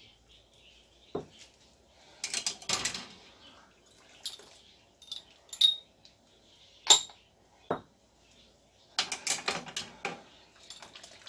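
Metal kitchen things clinking and clattering: tongs and jar lids knocking against stainless steel pots in a few short, sharp bursts, the busiest about two seconds in and again near the end.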